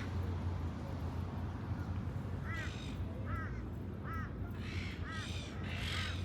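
Birds calling repeatedly, with short arched calls about once a second starting about two and a half seconds in, mixed with a few longer harsh calls, over a steady low background rumble.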